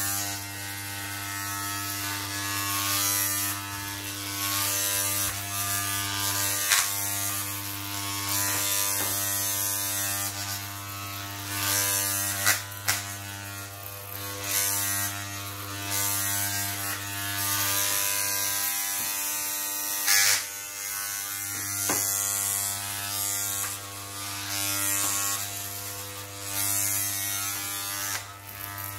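Corded electric hair clippers buzzing steadily while cutting hair, with a hiss that swells each time the blades pass through the hair. A few sharp clicks along the way.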